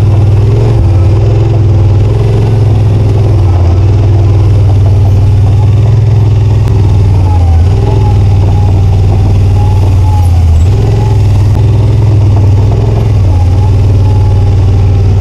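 Engine of an off-road utility vehicle running steadily as it drives slowly, with small shifts in pitch.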